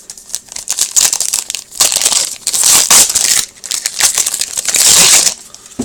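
Crinkling and crumpling of a trading-card pack wrapper being torn open and scrunched by hand, in several loud surges and stopping shortly before the end.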